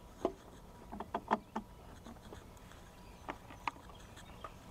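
Faint clicks and taps of DC cable plugs and an adapter being handled and pushed together at a portable power station. There is a cluster of them about a second in and a few more after three seconds.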